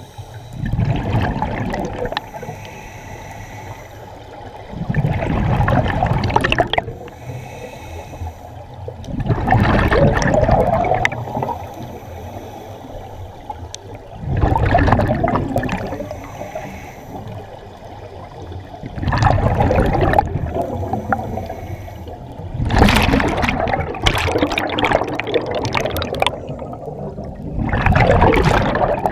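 Underwater scuba breathing: a diver's exhaled breath bubbling out of the regulator in bursts of about two seconds, roughly every four to five seconds.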